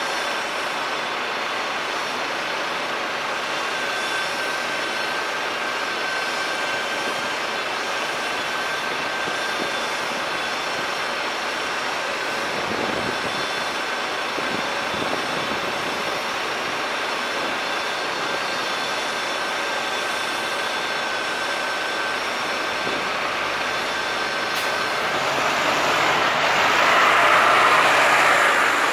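Steady city traffic noise, with a vehicle passing that swells louder near the end.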